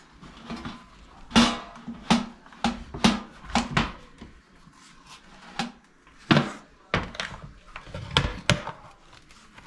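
A metal baking tray and a large steel cooking pot clanking and knocking against each other in a quick, irregular series of sharp hits as the pot is turned upside down onto the tray.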